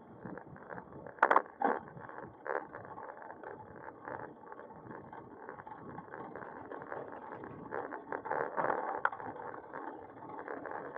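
Bicycle rolling along a road, heard from a camera mounted on the bike: a steady muffled rumble of tyres and rattling, with many small knocks over bumps and a couple of sharper clacks about a second in and again near the end.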